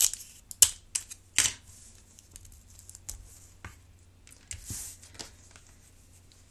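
Clear tape pulled off a small handheld dispenser and torn, a run of sharp clicks and short rips in the first second and a half, then the tape pressed onto a paper napkin with light clicks and a brief paper rustle.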